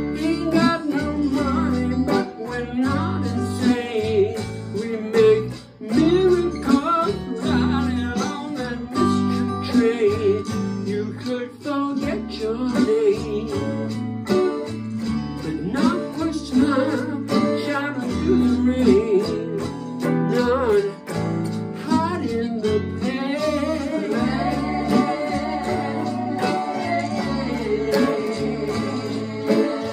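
Electric guitar playing a lead line with bent notes over a bass line, in a rock song.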